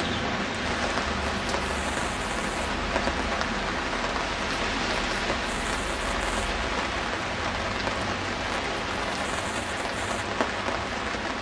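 Steady rain falling on wet ground.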